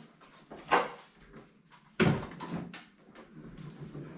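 A Makita cordless lawn mower set back down on its wheels on a concrete floor: a light click under a second in, then a sudden knock about two seconds in as it lands, followed by a short rattle that fades.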